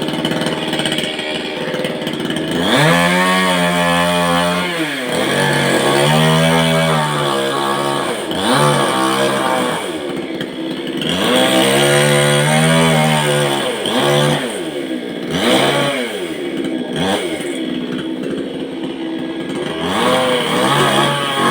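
Chainsaw cutting into a coconut tree, its engine revving up and dropping back again and again, rising and falling in pitch every two to three seconds.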